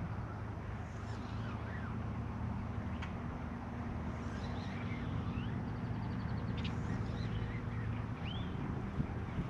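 Steady low mechanical drone with a few even tones in it, and scattered short bird chirps and calls over it.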